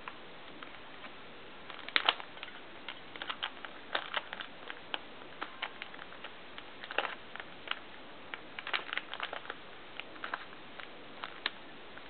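Plastic layers of a 3x3 Rubik's cube being turned fast by hand: irregular clicks and clacks, singly and in quick flurries, loudest about two seconds in.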